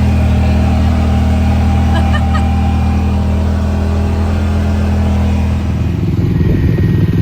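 A motor vehicle's engine running with a steady low drone. About six seconds in its note changes and turns rougher and pulsing, as if the engine is being given more throttle.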